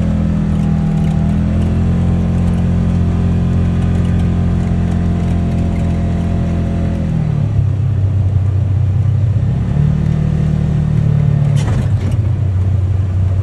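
UTV engine running steadily under way, its pitch holding higher for the first half and then dropping as it slows, with a brief rise again later before settling lower.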